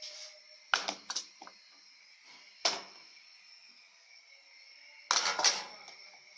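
A bowl and a cooking pot clinking and knocking as they are handled, a few short sharp knocks about a second in, one near three seconds, and a louder cluster near the end, over a faint steady hiss.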